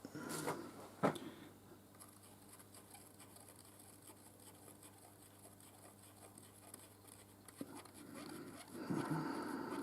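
Quiet handling of metal workpiece and tooling: two light knocks in the first second, then scraping and rubbing that builds near the end as the part is lined up by eye.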